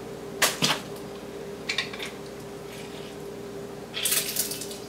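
Handheld plastic lime squeezer: two sharp clicks about half a second in, then a brief squeezing noise near the end as a lime half is pressed.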